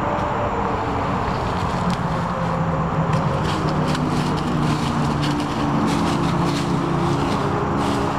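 Steady engine drone with a pitch that slowly drifts, from a motor not in view. From about three seconds in, short light crackles and clinks come over it, from the dog pushing into leafy bushes on its leash.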